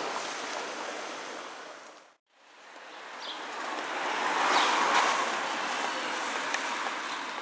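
Rushing outdoor noise with no clear tone. It fades out to a moment of silence about two seconds in, then swells to a peak in the middle and fades away again.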